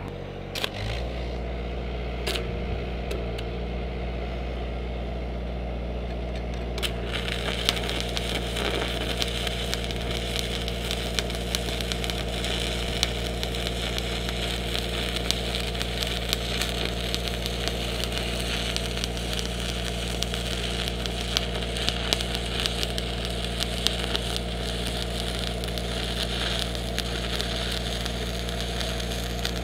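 Stick welding with a 3/32-inch 7018 rod: the arc crackles and sizzles steadily from about seven seconds in. An engine-driven welder hums steadily throughout.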